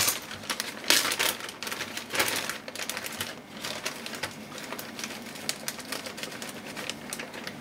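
Plastic zip-top bag being worked open by hand: the plastic crinkles and the zipper seal gives a rapid run of small clicks and crackles, loudest in the first two and a half seconds.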